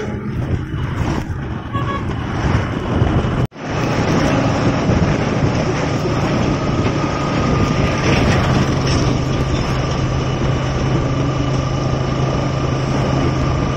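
Motorbike on the move: engine running under road and traffic noise. The sound breaks off sharply for an instant about three and a half seconds in, then carries on as a steady drone.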